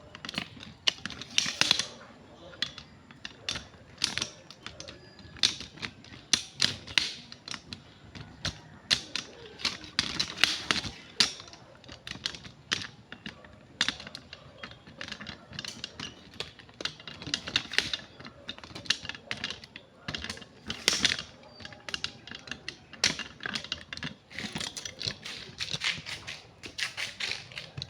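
Rapid, irregular clicking and tapping of small hard objects, several clicks a second.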